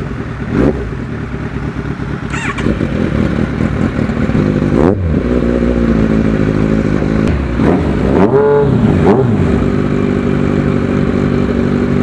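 Kawasaki Z1000R's inline-four engine with aftermarket KalKal exhaust pipes idling and revved in quick throttle blips, several spread through and a cluster of blips near the end.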